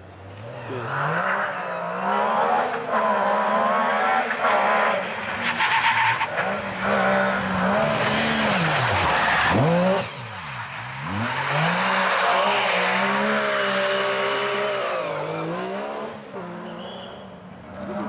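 MG Metro 6R4 Group B rally car's 3-litre V6 driven hard past at speed, its revs climbing and dropping again and again through gear changes and lifts. The revs dive sharply just before the midpoint, then a second loud run of revving follows and fades near the end.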